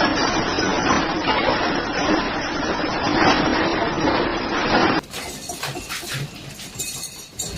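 Loud, continuous clattering and rattling with glass clinking and breaking, typical of objects shaken during an earthquake. About five seconds in it cuts off suddenly to a quieter stretch with scattered clinks.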